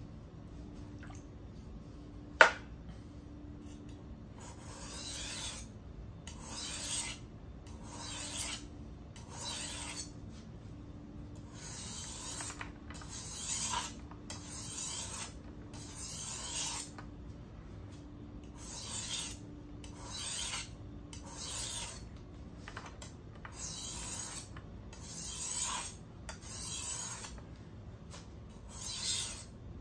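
Steel kitchen knife blade drawn across a whetstone by hand in long strokes, about one a second. The strokes come in sets of three or four with short pauses between sets. A single sharp click sounds about two seconds in.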